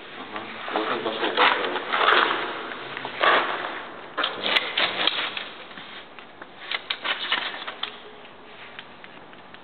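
Automatic drywall taper (bazooka) run along a drywall joint, making irregular squishing and clicking noises as it lays tape in joint compound. The bursts come in loose clusters, loudest in the first five seconds and quieter near the end.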